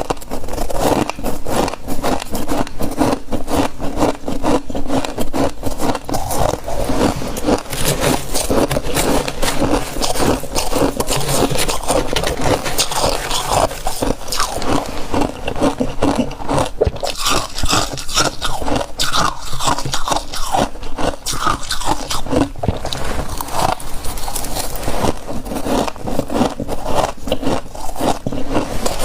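Handfuls of soft freezer frost crunching as they are bitten and chewed, mixed with scraping, in a dense, irregular crackle that keeps going.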